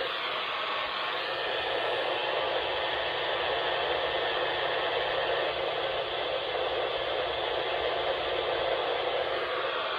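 Steady radio static: an even hiss with no tones or voices in it.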